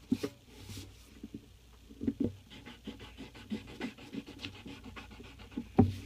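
Pencil scratching on paper in quick back-and-forth shading strokes, about four a second, with one sharper knock near the end.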